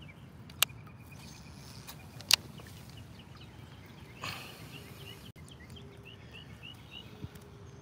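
A bird calling, a run of short high chirps repeated in the second half, over steady outdoor background noise. Two sharp clicks come earlier, the second the loudest sound.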